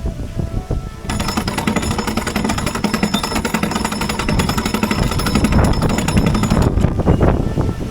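A fast mechanical rattling, like a pneumatic hammer, starts abruptly about a second in and stops suddenly near the end, over a steady low rumble.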